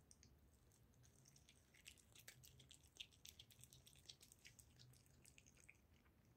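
Cat chewing and licking at a piece of liverwurst: faint, quick wet smacks and clicks. They start about a second and a half in and stop shortly before the end.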